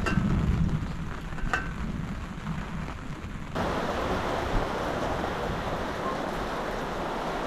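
Low thunder rumble dying away while an enamel pot lid clinks twice against its pot; about halfway through, a steady hiss of rain takes over.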